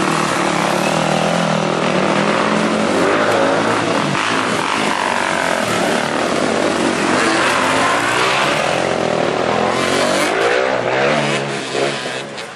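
Dirt bike engines revving up and down as the motorcycles ride through a shallow stream, over the splash of water. Several engines overlap, and the sound drops away near the end.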